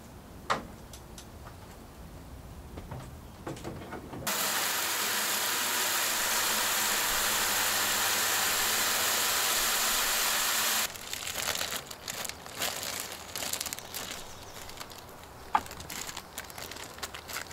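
Garden hose spray nozzle spraying water into a plastic bucket: a steady hiss that starts suddenly about four seconds in and cuts off about six seconds later. A sharp click comes near the start, and after the spray there is rustling and crinkling of a plastic bag being handled, with another sharp click near the end.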